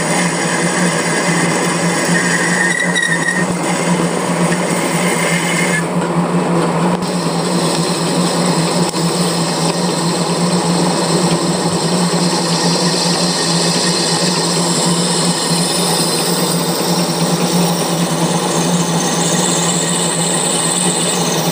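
Metal lathe running steadily while a tool cuts A-type V-belt grooves into a steel pulley: a constant machine hum with the noise of the cut. A higher whine from the cutting comes and goes early on, and a high-pitched squeal builds near the end.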